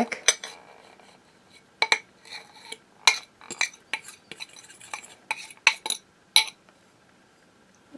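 A metal fork scraping and clinking against a ceramic bowl as a soft butter-and-spice mixture is scraped out of it: about a dozen short, sharp clinks from about two seconds in, stopping well before the end.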